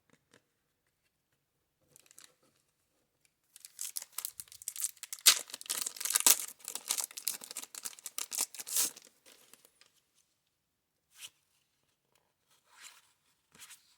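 Waxed paper wrapper of a 1990 Score baseball card pack being torn open and crinkled, starting a few seconds in and lasting about five seconds, followed by a few faint rustles of cards being handled.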